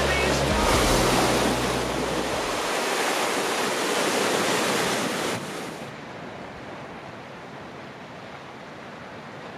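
Sea surf washing on the shore in a steady rush, with the last low notes of background music fading out in the first few seconds. About five seconds in it drops suddenly to a much quieter, duller hiss.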